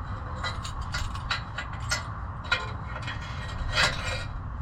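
Irregular small metal clinks and scrapes from the parts of a clamp-on exhaust O2 sensor bung (clamp, bolts, nuts) being handled and fitted onto the pipe, the sharpest one about four seconds in, over a steady low hum.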